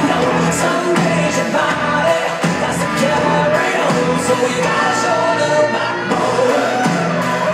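A rock song with a male singer playing from a vinyl record on an Angels Horn H00501 belt-drive turntable through its bookshelf speakers, the sound clean with little surface noise. The music cuts off suddenly at the end.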